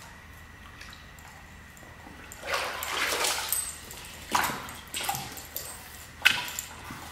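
Swimming-pool water splashing as a dog paws at it to reach a floating soccer ball. There is a longer splash about two and a half seconds in, then three short, sharp splashes, the last one the loudest.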